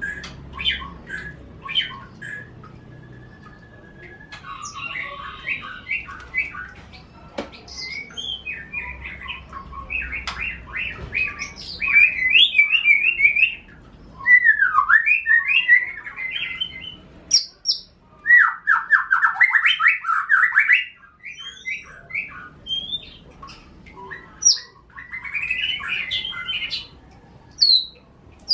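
Caged songbirds singing, led by an F1 canary used as the master song bird for tutoring a young white-rumped shama (murai batu): bursts of fast rolling trills, chirps and sweeping notes with short pauses between phrases.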